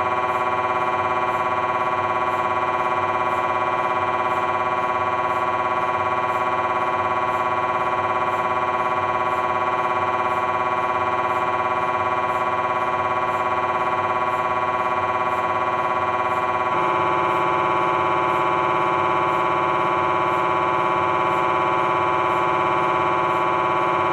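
Philips 1.5-tesla MRI scanner's gradient coils buzzing steadily through a T1-weighted coronal lumbar-spine sequence, a dense tone with many overtones. About 17 seconds in the tone changes and gets slightly louder.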